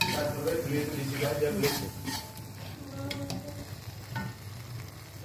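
Metal spatula stirring and scraping garlic with tomato and chili sauce sizzling in an aluminium wok. A few sharp scrapes or clacks of the spatula against the pan come about a second and a half in, at two seconds, at three seconds and at four seconds.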